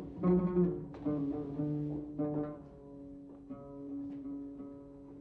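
Slow instrumental introduction to an Arabic sung poem, played on plucked and bowed strings with held notes, growing quiet about halfway through.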